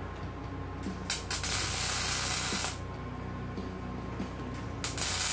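MIG welding: the arc crackles and hisses in two short welds. The first starts about a second in and lasts about a second and a half, and the second starts near the end.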